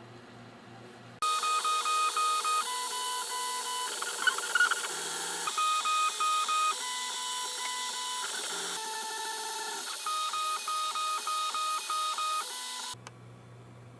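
3D printer's stepper motors whining in steady tones that jump between a few pitches, pulsing in quick even runs as the print head moves back and forth across the layer, starting and stopping abruptly.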